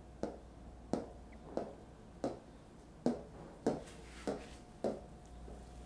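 About eight light, sharp taps of a marker against a whiteboard, roughly one every two-thirds of a second, stopping about a second before the end.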